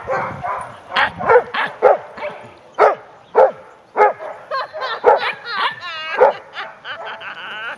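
Several dogs barking at play, short sharp barks coming every half-second or so, with a wavering, warbling cry near the end.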